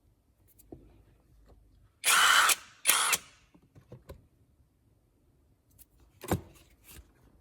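ONEVAN impact driver run in two short bursts of about half a second each. A single knock follows near the end.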